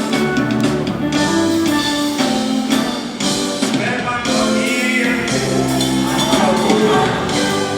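Live band music at a concert, with a steady beat and singing over it.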